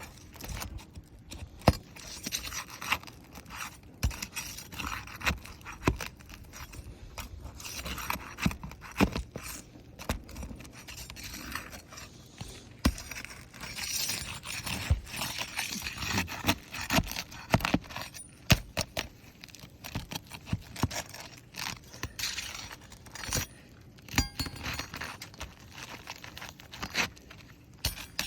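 Asphalt roof shingles being worked loose by hand: repeated scraping with many sharp clicks and cracks as the shingles are lifted. The cracking comes from shingles so brittle that they crack along a crease when lifted.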